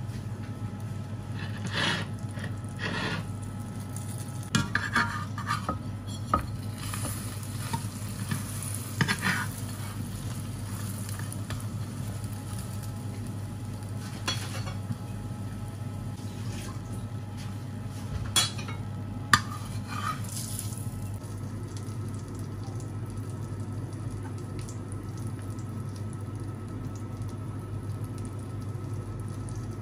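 Quesadilla frying in a non-stick frying pan, with a spatula scraping and knocking against the pan several times in the first twenty seconds as it is turned, over a steady low hum.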